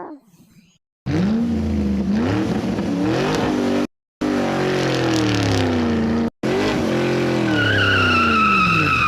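Racing-car engine sound effect revving, its pitch rising and falling, in three segments cut off abruptly by short silences. A high tyre squeal comes in during the last couple of seconds.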